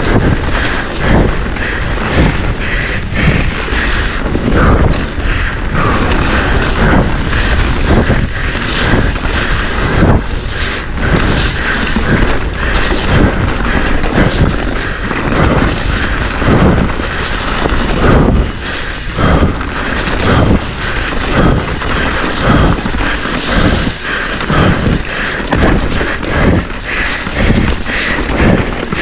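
Mountain bike racing down a rough, wet trail, heard up close from the rider: a steady low rumble of tyres on dirt with frequent sharp knocks and clatter as the bike hits roots and rocks.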